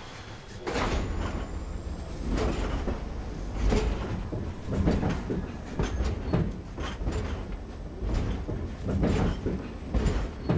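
Passenger train carriage heard from inside as the train rolls at low speed: a steady low rumble with irregular clanks and knocks about once a second. The rumble starts up about a second in.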